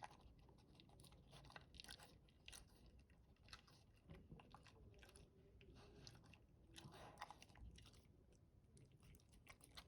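Dog chewing its food slowly: faint, irregular crunches and clicks of eating. The food has wormer medicine mixed in, which makes him eat slowly.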